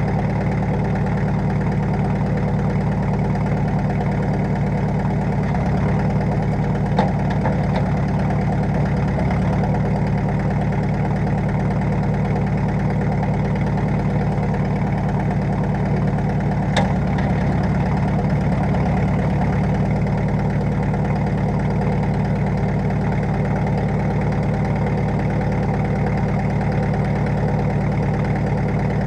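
Tractor engine idling steadily, with two brief sharp clicks, one about a quarter of the way in and another a little past the middle.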